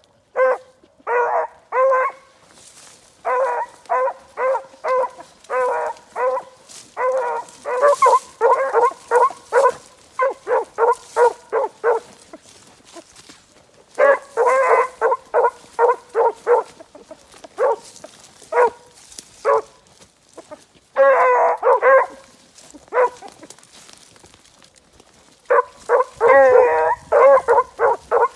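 Beagle hounds giving tongue as they run a rabbit's scent line: runs of short, repeated baying barks, several a second, broken by pauses of a second or two. The calls grow denser near the end.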